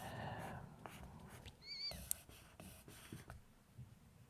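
Graphite pencil writing on paper, faint scratchy strokes. A brief, high, wavering chirp sounds just before two seconds in.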